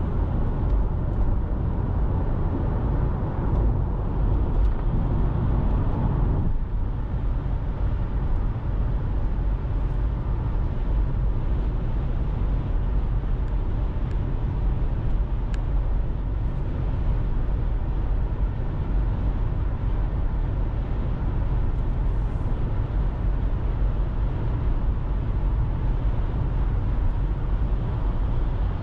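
Steady low rumble of a car driving on city streets: road and tyre noise with engine drone. The mid tones ease off about six seconds in.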